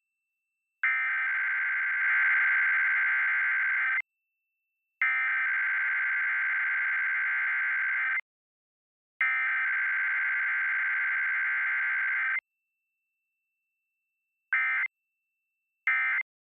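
Emergency Alert System Required Weekly Test: the SAME digital header sent three times as long bursts of data tones, each about three seconds with a one-second gap between them. About two seconds later come two short end-of-message data bursts, with no attention tone between header and end.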